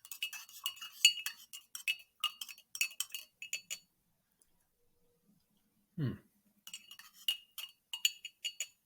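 A spoon clinking against the inside of a cup as it stirs: quick, bright, ringing clinks, several a second, in two runs of a few seconds with a pause between.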